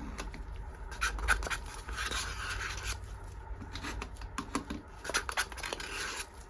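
Small handling sounds of a plastic mixing cup and a plastic piping bag as white-tinted resin is poured from one into the other: scattered light clicks, scrapes and plastic rustles.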